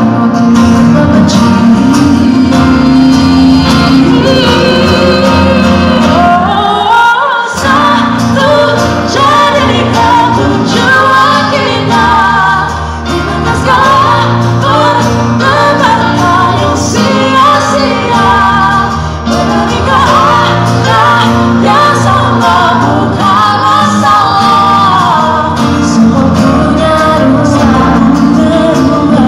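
Two women singing a duet into microphones over amplified instrumental accompaniment. The low accompaniment drops out briefly about seven seconds in, then comes back.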